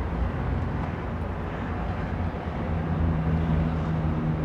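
Steady low rumble of city traffic, with a vehicle engine's steady low hum coming in about three seconds in.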